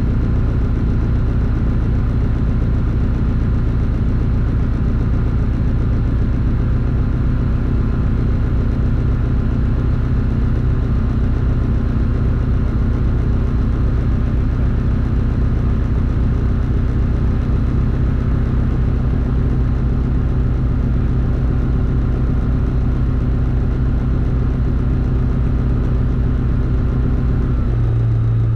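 Cabin drone of an Issoire APM 20 Lionceau light aircraft in flight: its Rotax 912 flat-four engine and propeller running steadily, heard from inside the cockpit. The engine note changes abruptly near the end.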